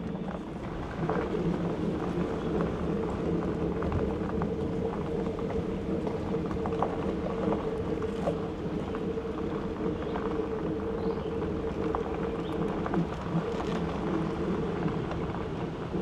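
Truck engine running steadily at low speed on a slow drive, with scattered light clicks from the tyres rolling over a gravel road.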